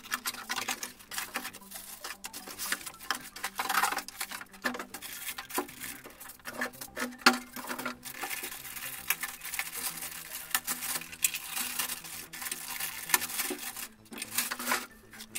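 Cardboard box and plastic packaging being handled during unboxing: a continuous run of crinkling, rustling and light knocks as bagged parts are lifted out, thinning out near the end.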